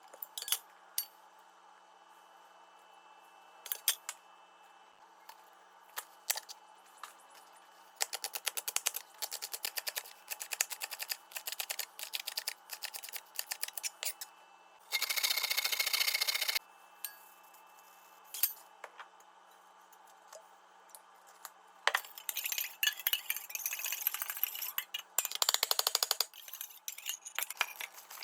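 Kitchen food-prep sounds: scattered clicks and clinks of utensils, runs of rapid rattling and scraping, and a short burst of steady hissing about fifteen seconds in.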